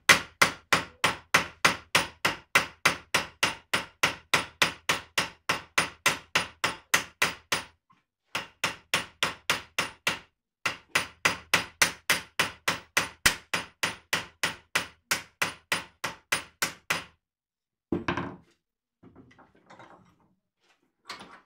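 Steel hammer blows riveting new cutting sections onto a walk-behind tractor mower's sickle-bar knife: quick, even strikes at about three a second, with two short pauses, stopping about 17 seconds in. A brief clatter follows about a second later.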